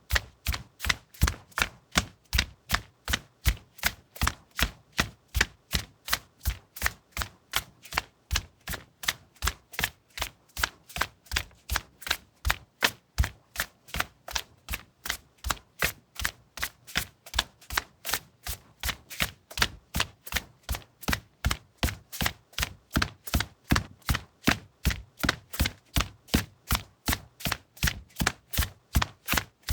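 Running footsteps on a linoleum floor: quick, evenly spaced footfalls in a steady rhythm that keeps up without a break.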